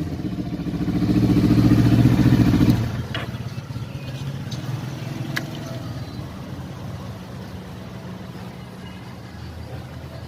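Kawasaki Versys 650's parallel-twin engine running at raised revs, then dropping off about three seconds in to a lower, steady note that slowly fades.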